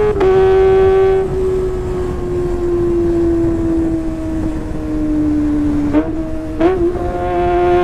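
2020 Kawasaki ZX-25R's 250 cc inline-four running at high revs through a Sportisi Motorsport SRX aftermarket exhaust. It gives a high, steady exhaust note that slowly sags in pitch for several seconds, then breaks briefly about six seconds in and comes back at a higher pitch.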